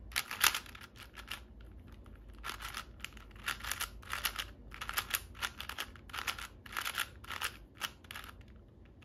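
Plastic 4x4 speed cube being turned quickly by hand: rapid clicking and clacking of the layers in short runs of turns, with brief pauses between the runs.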